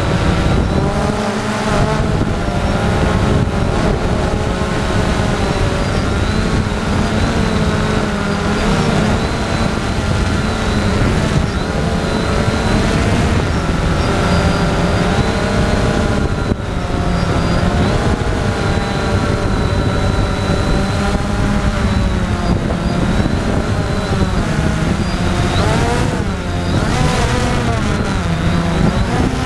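Storm X3 drone's electric motors and propellers whining up close, from a camera mounted on the drone, the pitch rising and falling continually as the motor speeds change in flight.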